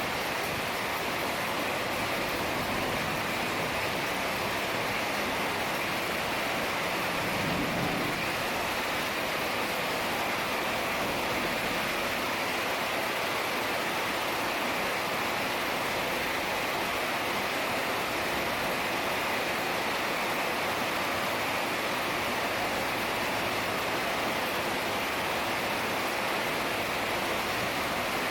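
Heavy rain falling steadily, an even hiss with no breaks. A brief low rumble comes in about eight seconds in.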